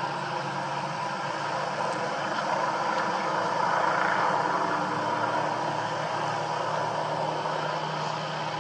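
A steady engine drone over even background noise, with no sudden changes.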